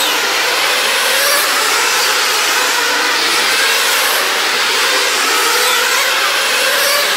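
Nitro-powered RC sprint cars' small two-stroke glow engines running at high revs on track: a steady, dense buzz whose pitches waver up and down as the cars come and go.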